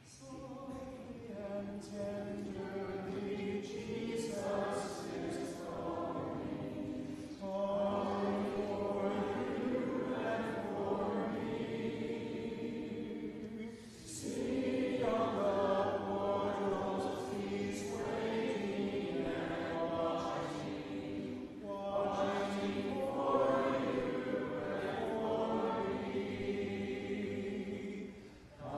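A church congregation singing the invitation hymn in unison without instruments. The singing goes line by line, with short breaks between phrases.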